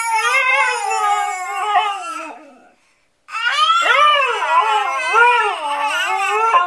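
A husky howling and 'talking': one long howl slowly falling in pitch, then after a short pause a second, wavering howl that bends up and down in pitch like talking.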